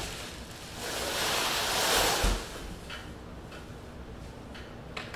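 Plastic packaging wrap rustling and crinkling as it is handled, loudest for about a second and a half, ending in a low thump a little over two seconds in; a few faint taps follow.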